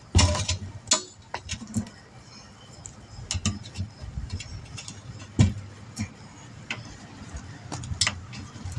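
Irregular clicks, clinks and knocks of metal tools and parts being handled while working a wheel and tire, with two louder knocks, one just after the start and one about five and a half seconds in.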